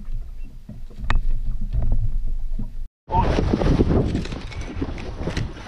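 Wind rumbling on the microphone in an open boat, with a few light knocks. After a cut about three seconds in comes loud close rustling of clothing and gear handling as an angler grabs a rod out of its holder.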